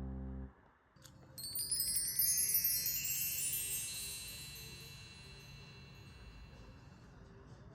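A shimmering run of small metal chimes, like a mark tree swept by hand, comes in about a second and a half in. It cascades down in pitch and rings away over a few seconds. Just before it, a plucked-string music phrase ends.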